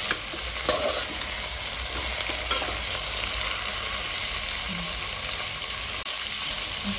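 Chopped vegetables sizzling in hot oil in a pressure cooker as a metal spatula stirs them, with a few sharp clicks and scrapes of the spatula against the pot in the first three seconds.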